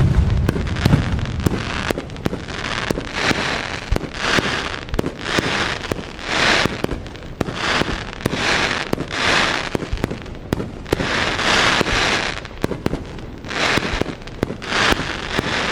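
Fireworks going off: a dense run of sharp pops and crackles with recurring hissing swells about once a second, and deep booms in the first second.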